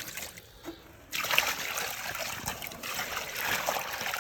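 Something poured out of a bucket: a steady rushing trickle that starts about a second in and runs on for about three seconds.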